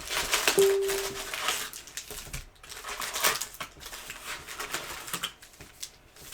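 Foil trading-card pack wrappers crinkling and cards being shuffled and handled, with scattered rustles and light clicks. A short steady tone sounds briefly about half a second in.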